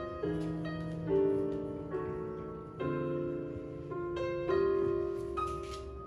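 Piano music over a low bass line, the chords changing about once a second.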